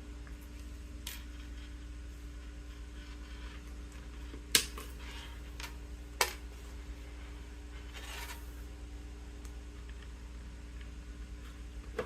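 Metal chin-strap hardware being handled and fitted to an M1 helmet. There are faint handling sounds, with two sharp clicks a little under halfway in, about a second and a half apart. A steady low hum runs underneath.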